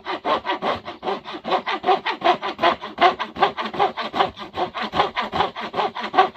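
A hand tool worked rapidly back and forth on a red elm axe handle, a steady scraping of about six strokes a second.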